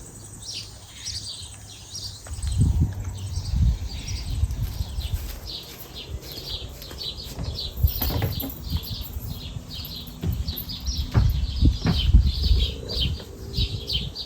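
Birds chirping in quick, continuous short calls, over a low rumble on the microphone with a few irregular thumps.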